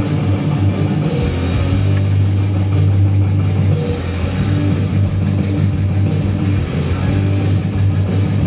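Loud rock music playing.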